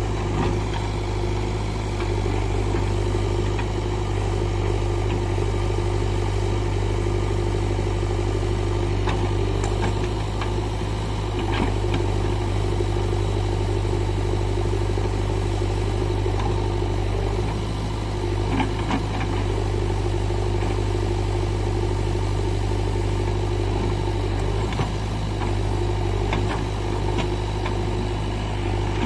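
JCB 3DX backhoe loader's diesel engine running steadily while the backhoe arm digs, with a few brief knocks of the bucket striking soil and stones.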